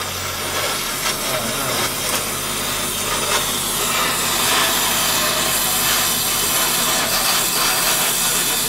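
Gas welding torch hissing and crackling steadily as a new exhaust pipe is welded in place under a car.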